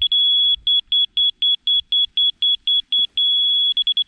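CST/Berger rotary laser receiver on a grade rod beeping its high electronic tone. It holds a steady tone briefly at the start, then beeps about five times a second for a couple of seconds, then steady again for about half a second. It breaks into fast beeps near the end. The beep rate tells which way to move the receiver to hit the laser beam, and the continuous tone means it is right on grade.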